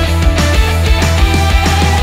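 Loud background music with heavy bass and a steady drum beat.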